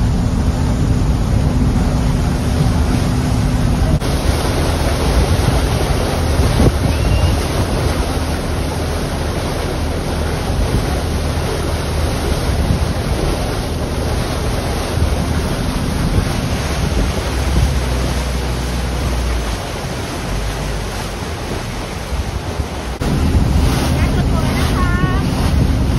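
Express riverboat under way: a steady engine hum with water rushing and splashing along the hull and wind buffeting the microphone. The engine hum drops away for a few seconds past the middle, then comes back near the end.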